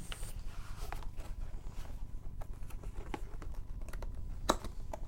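Hands handling a cardboard product box: light taps, scrapes and rustles, with one sharper click about four and a half seconds in.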